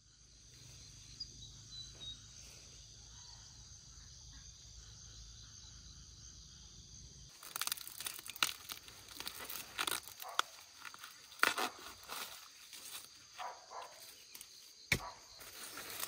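Steady high insect buzzing over a low hum, then from about seven seconds in close rustling and crackling of corn leaves and husks with repeated sharp snaps as ears of corn are broken off the stalks by hand.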